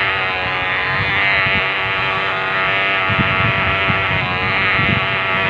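Radio-controlled catamaran speedboat's motor running steadily with a high buzzing whine, over churning, splashing water from its run.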